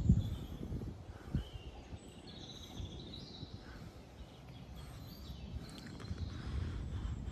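Birds chirping and singing in the surrounding trees, with low rumbling buffets of wind on the microphone, the loudest right at the start and a short thump about a second and a half in.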